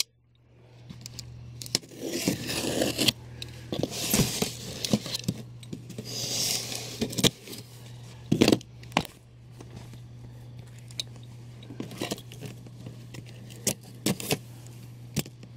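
A folding knife slicing packing tape on cardboard shipping boxes, with cardboard flaps scraping and the boxes being handled: irregular scrapes and sharp clicks and knocks.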